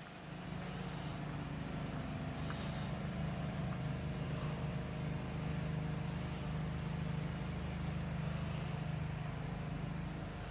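A motor vehicle engine running: a steady low hum that holds one pitch.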